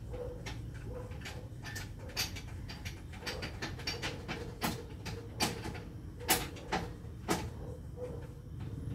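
A run of irregular sharp clicks and knocks, a few louder than the rest, over a steady low hum.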